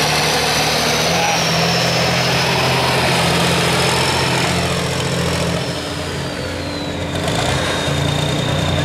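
Turbocharged diesel engine of a pro stock pulling tractor running loud, with a high turbo whine over the engine note. The whine drops in pitch as the engine eases off briefly about two-thirds of the way through, then the engine picks back up.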